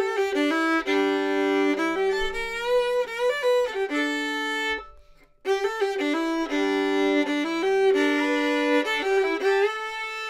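Solo fiddle, bowed, playing a simple melody with a few extra bluegrass-style notes added. It comes in two phrases with a short break about five seconds in, with a low string sounding under the melody and some notes slid into.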